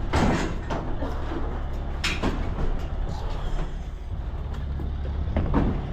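A steady low rumble, with a few short knocks and rustles over it, the sharpest about two seconds in.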